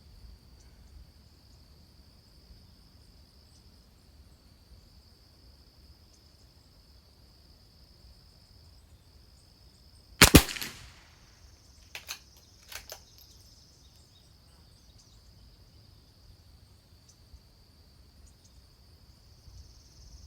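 A Christensen Arms Ranger .22 LR rifle firing a single shot about halfway through, followed a couple of seconds later by two short clicks as the bolt is cycled, and another shot right at the end. A steady high insect drone runs underneath.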